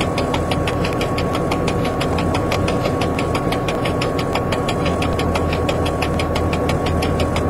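Diesel train's engine and running gear heard from inside the driver's cab as it rolls along, a steady drone with a fast, even ticking of about six or seven clicks a second and a thin steady whine.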